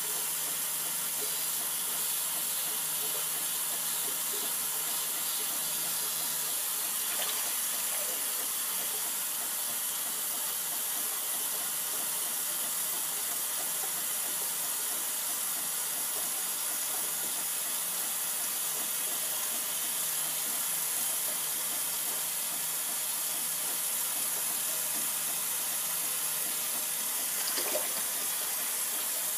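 Hot water tap running steadily into a sink, with a low steady hum from the ProGlide Styler razor's vibration motor as it shaves.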